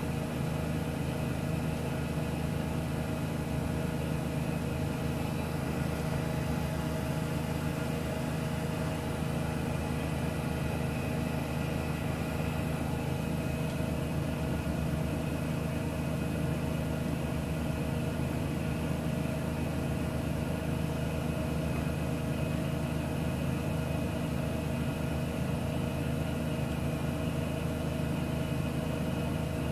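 Miele W1 front-loading washing machine running with a steady, unbroken motor hum and several constant tones.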